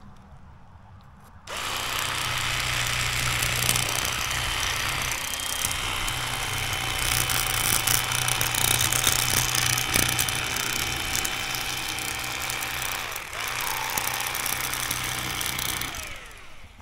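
Electric fillet knife switched on about a second and a half in, its motor and reciprocating blades buzzing steadily as they saw along a bass to cut a fillet. The pitch dips briefly late on, and near the end the knife is switched off and winds down with a falling pitch.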